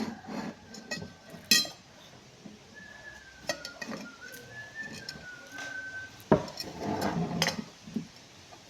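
Cutlery clinking and scraping against dishes while eating: scattered sharp clinks, the loudest a little over six seconds in. A faint, thin wavering tone runs through the middle.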